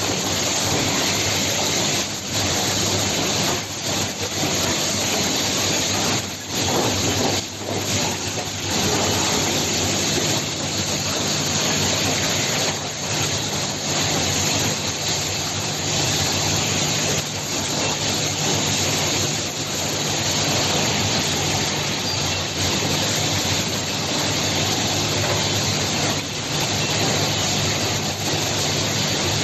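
Steady machinery noise of an automatic cable-tie production line: a dense hiss over a low steady hum, dipping briefly now and then.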